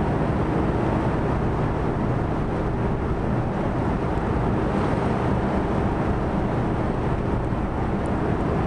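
Car ferry Katsuragi under way out of port: a steady low drone of the ship's engines mixed with rushing wind and water, unbroken throughout.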